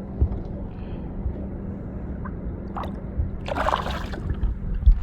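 Water sloshing, with a short splash about three and a half seconds in, over a steady low hum.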